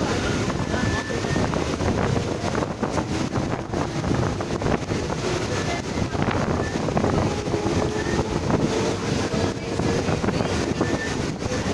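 Electric suburban EMU train running, heard from its open doorway: a steady rumble of wheels on the rails mixed with wind buffeting the microphone.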